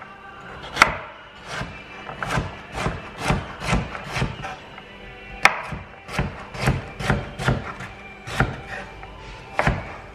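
Kitchen knife dicing a carrot on a wooden chopping board: a run of short knife-on-board knocks, about two a second, with a brief pause in the middle.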